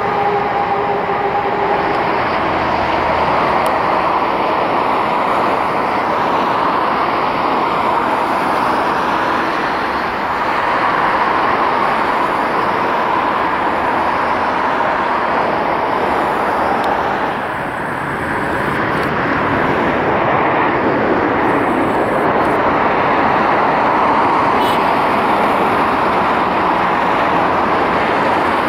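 Boeing 737-800's CFM56 jet engines landing: a steady jet noise on approach and touchdown, a brief dip about 17 seconds in, then the noise swells again as the airliner rolls out along the runway.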